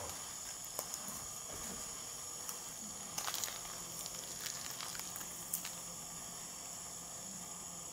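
Quiet outdoor background: a steady high hiss, broken by scattered soft clicks, with a cluster of them about three seconds in and a sharper one a little before six seconds.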